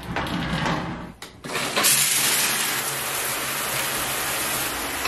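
Shower being turned on: a click about a second in, then about a second and a half in water bursts from the handheld shower head and sprays steadily onto the tile.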